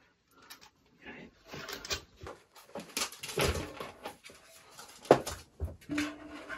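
A puppy's paws and claws knocking and scraping on a wooden tabletop and a plastic step stool: irregular knocks, the sharpest about five seconds in.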